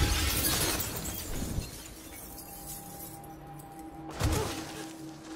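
Glass shattering with a loud crash, the shards trailing off over a second or so, under quiet sustained film music. About four seconds in, a second heavy impact.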